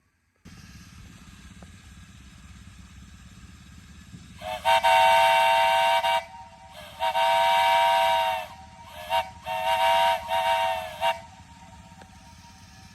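3-inch Lonergan three-chime steam whistle blown on about 30–45 psi of steam: a steady hiss, then from about four seconds in two long blasts sounding a three-note chord, followed by a run of shorter blasts. The pitch dips briefly as each blast ends.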